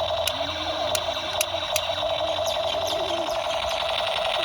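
Battery-powered toy pistol playing its electronic sound effect: a steady buzzing drone, with a few sharp clicks in the first two seconds.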